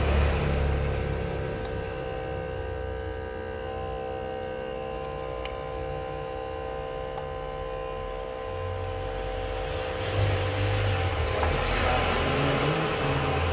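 Steady hum of an LCD separator's vacuum pump running, several steady tones over a low drone. Over the last few seconds a louder hiss and low rumble join in.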